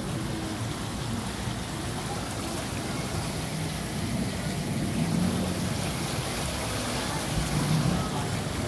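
Water trickling and splashing down an artificial rock waterfall into a wishing-well pool, as a steady wash over the low hum of street traffic.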